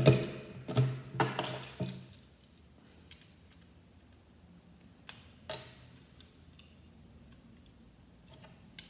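Small plastic Lego pieces clicking and tapping as a little Lego car is handled and pressed together: a quick run of sharp clicks in the first two seconds, then a few faint, scattered clicks.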